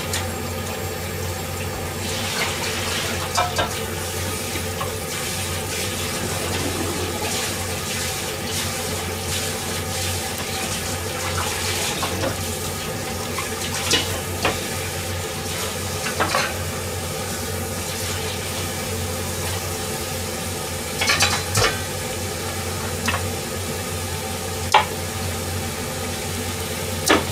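Pork slices and asparagus sizzling in a frying pan under a glass lid, a steady frying hiss broken by occasional sharp pops and crackles. A steady low hum runs underneath.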